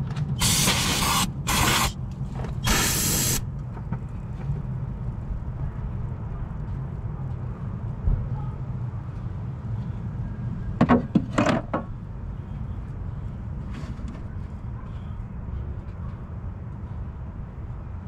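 Aerosol brake cleaner sprayed in three short hissing bursts onto an electrical connector. A steady low rumble runs underneath, with a couple of brief clatters about eleven seconds in.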